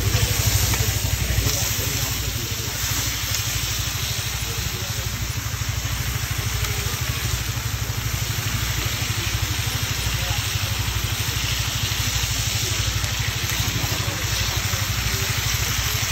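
Banana-leaf-wrapped fish frying in oil on a hot flat griddle, an even sizzle, over a steady low mechanical hum.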